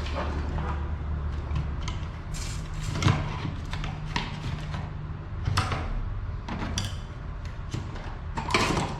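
Scattered sharp clicks and knocks of a tool and a mountain-bike flat pedal being handled on a workbench, over a steady low hum.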